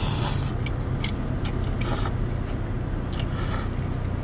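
Flat rice noodles (kwetiau) slurped in from chopsticks and then chewed, with a few short wet bursts, over a steady low vehicle hum inside a car cabin.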